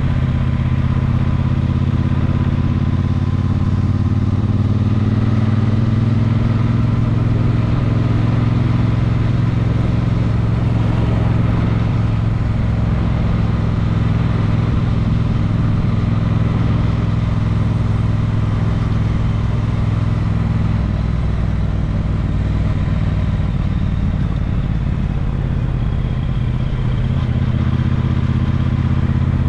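Motor vehicle engine running steadily, its pitch rising a little over the first few seconds and then holding even.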